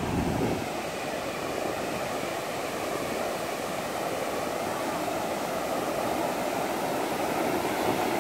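Ocean surf: waves breaking offshore and foam washing up the sand, a steady rushing. Wind buffets the microphone briefly at the start.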